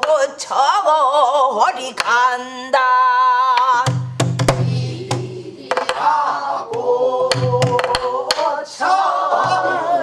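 A woman singing pansori in a strained, wide-vibrato voice, accompanying herself on a buk barrel drum: sharp stick strokes on the drum and deep palm-struck booms, the longest about four seconds in and another near the end.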